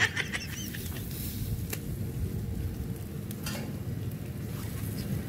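Stingray sizzling on a wire rack over a charcoal brazier, with a couple of sharp clicks from metal tongs on the rack.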